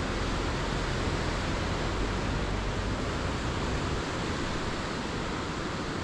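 Steady rushing of wind and ocean surf below a sea cliff, with a low wind rumble on the microphone that eases about four seconds in.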